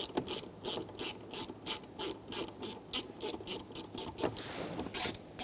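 Hand ratchet with a 7 mm socket clicking steadily, about three clicks a second, as it backs out a door-panel bolt. The clicking pauses briefly near the end, then a couple more clicks follow.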